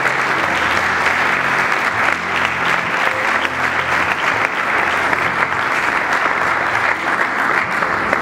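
Audience applause: many people clapping in a dense, steady patter that eases off right at the end.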